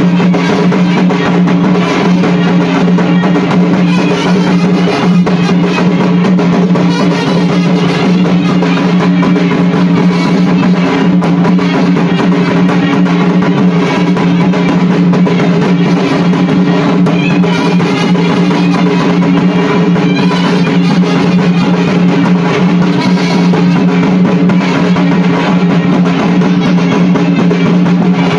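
Folk barrel drums beaten in a dense, continuous Paika dance rhythm, with a steady held tone sounding under the drumming.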